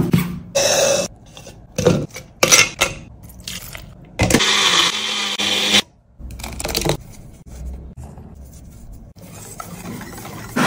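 A run of kitchen sounds: a chef's knife chopping red onion on a cutting board in a few sharp strokes, then an electric mixer grinder running for about a second and a half near the middle and stopping abruptly, then a wire whisk stirring a yogurt and green-herb mixture in a stainless steel bowl, quieter.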